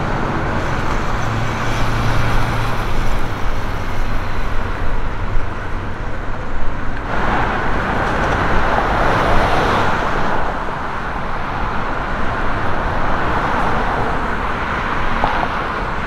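Steady outdoor traffic noise, a continuous wash of road vehicles, growing abruptly louder about seven seconds in and easing back after about ten seconds.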